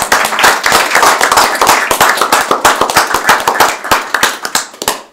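A small group of people applauding, dense hand claps that thin out and stop near the end.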